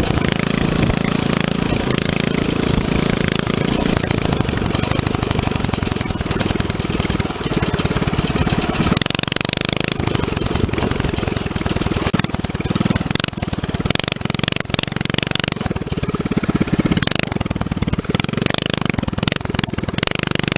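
Coleman CT200U mini bike's 196cc single-cylinder OHV four-stroke engine running under way, heard close up with wind noise over the microphone. About halfway through the sound turns choppier and more uneven.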